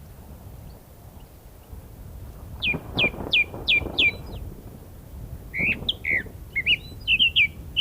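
Small songbird chirping over a steady low wind rumble. About three seconds in comes a quick run of five downward-sliding chirps, and more chirps follow in fast runs toward the end.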